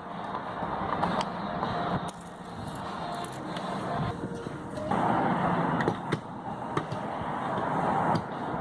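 Road vehicle noise: a steady rush of passing traffic that swells about five seconds in, with scattered sharp clicks and knocks.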